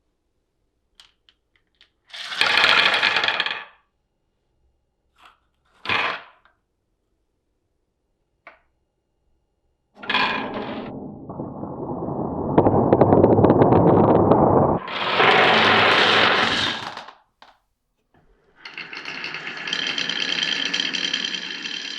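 Glass marbles rolling and clattering through a wooden marble run, in separate short runs with silent gaps between them. About halfway through comes a longer, heavier stretch of rolling, and near the end a steadier sound with a ringing tone sets in.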